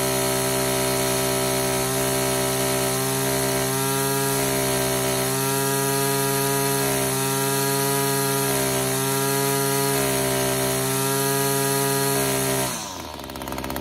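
Two-stroke engine of an Echo SRM string trimmer held at full throttle with a high-pitched whine while the high-speed mixture screw on its HiPA replacement carburetor is turned. The pitch rises and dips slightly every second or two as the mixture is leaned toward peak RPM and backed off again. Near the end the throttle is released and the engine drops toward idle.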